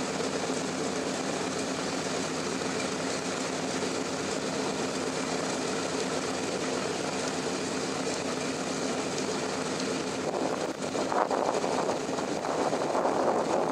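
Radial piston engines of a World War II bomber running at a steady drone. From about ten seconds in, irregular gusts buffet the microphone over it.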